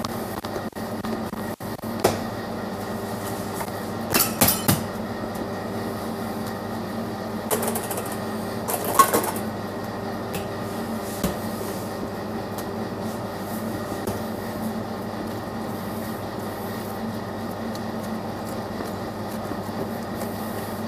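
A steady hum of kitchen machinery, with a few short knocks and clatters of handling: once about two seconds in, a quick cluster around four to five seconds, and more around seven and nine seconds.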